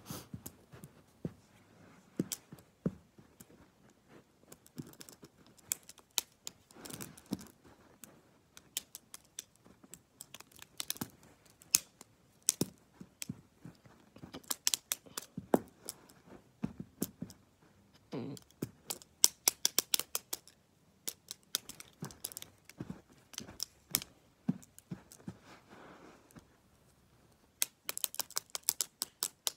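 Plastic gel pens being handled and flicked: sharp clicks and clacks of plastic on plastic, some in quick runs of light ticks.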